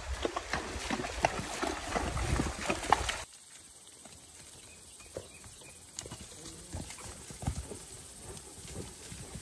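Paint horse walking through a shallow river, its hooves splashing and knocking on the stony bed, for about three seconds; then, after a sudden drop in level, softer, sparser hoof falls of the horse walking on grass and dirt.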